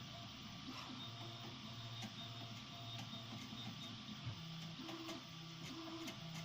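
SIRIUS 3D printer's stepper motors whining through a sequence of moves. The tone steps between a few pitches, switching to a quicker back-and-forth pattern about four and a half seconds in, with faint clicks over it.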